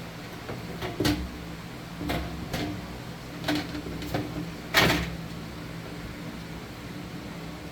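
A series of sharp knocks and clacks, about six in all and the loudest about five seconds in, over a steady low hum.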